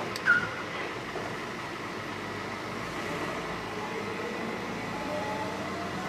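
Steady background hum inside a parked light aircraft's cabin as its electrical system powers up, with a faint whine slowly rising in pitch from about four seconds in.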